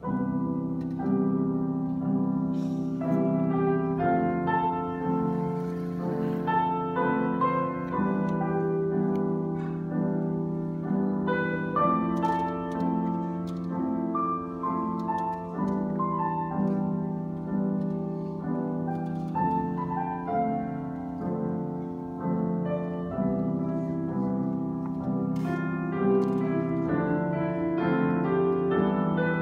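Grand piano played solo: a piece with a steadily repeating accompaniment figure in the middle-low register under a melody line, played continuously.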